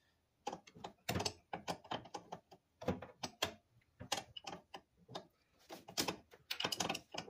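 Hand tools working on a car's A/C line fitting: an irregular run of sharp metal clicks and knocks.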